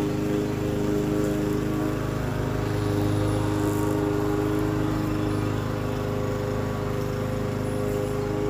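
Lawn mower engine running steadily at an even pitch.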